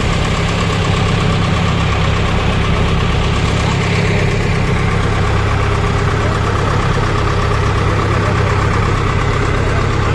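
Fishing boat's engine running steadily under way: a loud, constant hum with no change in speed.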